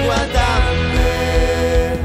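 A song in Alguerese Catalan: a singer's line over band backing with a steady drum beat, the voice holding one long note after the first half second.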